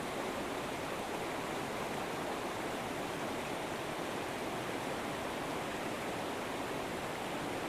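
A river flowing, a steady even rush of water.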